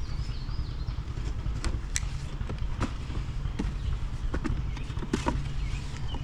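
Cardboard shipping box being handled and opened by hand: scattered taps, knocks and scrapes of the cardboard and its flaps, over a steady low rumble.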